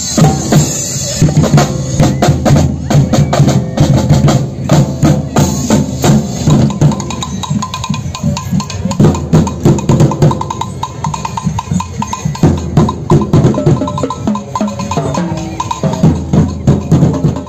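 A group of street drummers beating drums with sticks in a fast, loud rhythm, many strokes a second.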